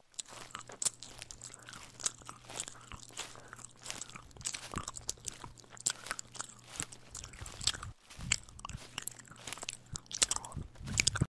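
Horse chewing grass: a run of irregular crunching bites and grinding, over a faint low hum. It cuts off abruptly near the end.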